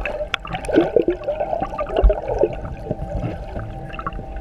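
Underwater sound through a camera's waterproof housing: bubbling, gurgling water with scattered clicks and a steady hum.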